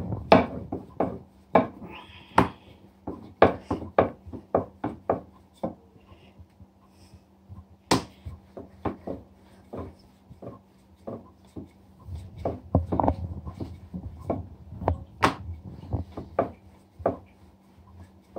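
Wooden rolling pin rolling out a round of dough on a countertop: irregular clacks and knocks, a few a second, as the pin is pushed back and forth and bumps the counter. A faint steady hum sits underneath.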